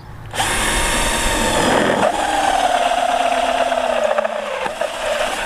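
Smash cordless hammer drill driving a hole saw through a steel sheet: the motor starts about half a second in and runs on under load, its whine slowly dropping in pitch over the harsh noise of the saw teeth cutting the metal.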